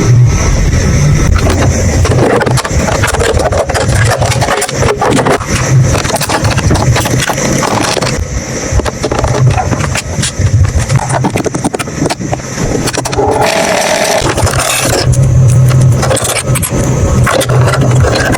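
Juki HZL-G320 sewing machine stitching at speed, its motor and needle mechanism running with a fast, even clatter, with brief slow-downs about eight and twelve seconds in.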